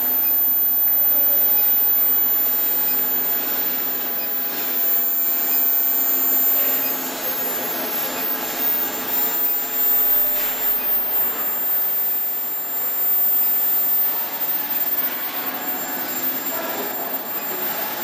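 Induction forging furnace line running: a steady machine whir with a thin, very high-pitched whine on top, its loudness wavering a little.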